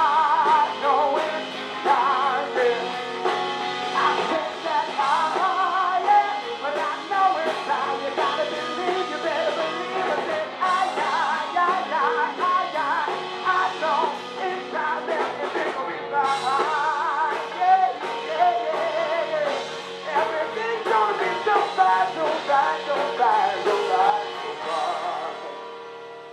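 Live soul band playing with guitar and drum kit, dying down near the end.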